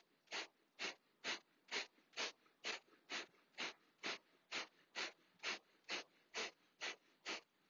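Kapalabhati breathing: sharp, forceful exhalations puffed out through the nose by snaps of the belly, about two a second in an even rhythm, sixteen in a row, stopping near the end.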